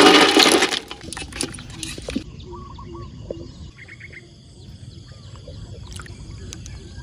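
Freshwater snails poured from a wicker basket into an aluminium basin: a loud clatter of shells hitting the metal, with the basin ringing, dying away within the first second. A few scattered clicks follow, then quiet outdoor background with faint short calls.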